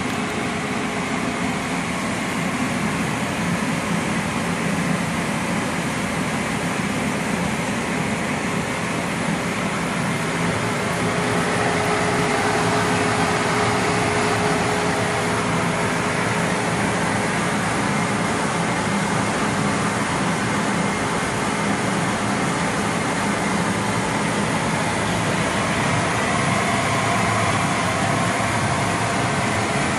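Preferred Pack PP-5600 automatic L-bar sealer and shrink tunnel running: a steady mechanical whir and hum that grows a little louder partway through.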